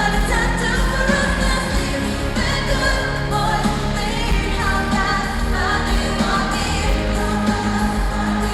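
Live pop music: a woman singing the lead over a full band with a steady bass.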